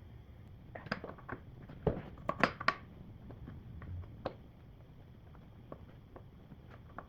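Scattered sharp metallic clinks and knocks as a cambered strut bolt is turned and worked out of the strut and knuckle. They come in a quick cluster in the second and third seconds, with a single knock after that and lighter ticks later.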